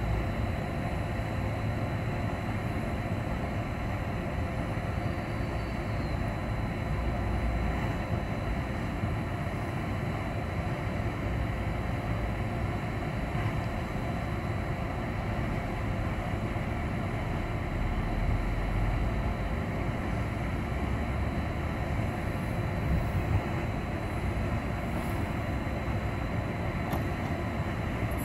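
Siemens Taurus electric locomotive standing with its pantograph up, its cooling fans and power equipment running with a steady hum and a few faint steady high tones.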